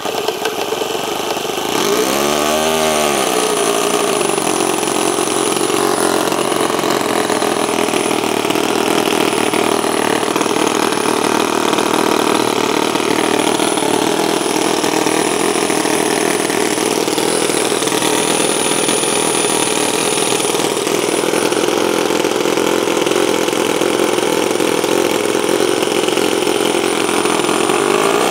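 Toyan FS-L200AC two-cylinder, four-stroke nitro glow model engine being spun by its electric starter and catching about two seconds in, with a brief rise and fall in pitch. It then runs steadily and smoothly, a sign of a good factory tune, with a thin high whistle over the engine sound.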